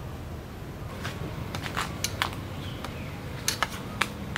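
Metal spoon clinking and scraping against a stainless steel bowl as food is stirred, a series of short, irregular light clinks.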